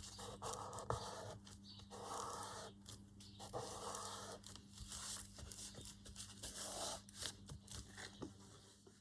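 Faint rustling and scraping of paper being handled and pressed down, in stretches of about a second with short pauses, over a steady low electrical hum.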